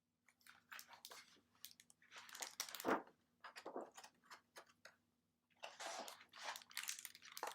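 Faint paper rustling and soft clicks from a picture book being handled and its pages turned, in two clusters of short crinkly sounds with a louder one about three seconds in.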